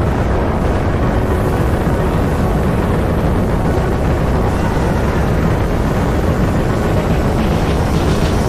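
Rigid inflatable boat running at speed: a loud, steady rush of wind buffeting the microphone, mixed with engine and water noise.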